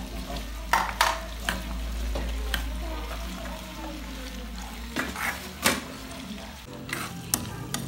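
A plastic spoon stirring diced pork, potato and carrot in a frying pan, with scattered clicks and knocks of the spoon against the pan over the sizzle of frying.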